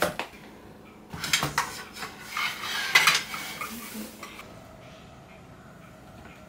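A cooler-box lid shuts with a click, then dishes and cutlery clatter on a table for about three seconds as a black food container is set out and handled.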